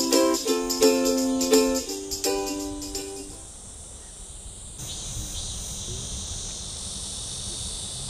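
Plucked-string background music with a bright, lively tune that fades out in the first three and a half seconds, giving way to a steady, high-pitched chorus of insects.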